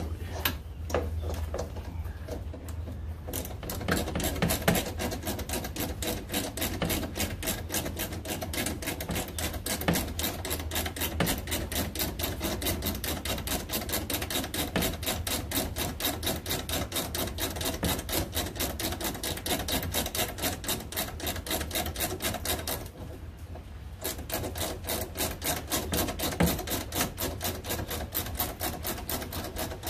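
Hand ratchet wrench clicking rapidly and evenly as hinge bolts are run in snug, starting a few seconds in, breaking off for about a second around two-thirds of the way through, then going on.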